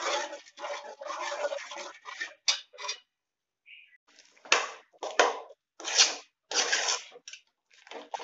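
A ladle scraping against a stainless steel pot while stirring fenugreek-rice kali, kept moving so no lumps form: first a continuous scraping through the thin batter, then, after a short break, about six separate scraping strokes through the thickened kali.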